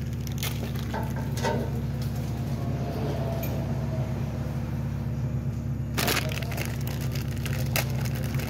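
A plastic bag of small lug nuts being handled and opened, giving scattered crackles and crinkles, the sharpest about six seconds in, over a steady low hum.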